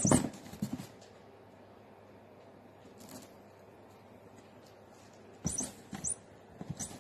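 Toy mouse squeaking in quick runs of high-pitched squeaks, once at the start and again about five and a half seconds in, with a few soft knocks against cardboard; quiet in between.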